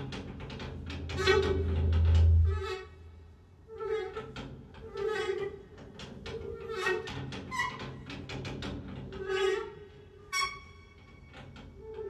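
Free improvisation for woodwind and live laptop electronics: short, broken phrases rich in overtones, one after another. Under them a deep low rumble swells and stops about two and a half seconds in.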